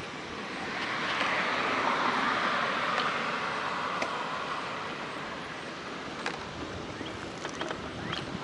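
A road vehicle passing by: tyre and engine noise swells to a peak about two seconds in, then slowly fades. A few faint clicks near the end.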